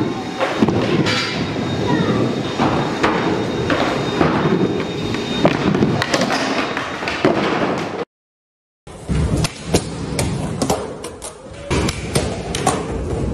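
Skateboards rolling on concrete with many sharp clacks and slams of boards popping and landing. The sound cuts out completely for under a second about eight seconds in, then more board pops and landings follow.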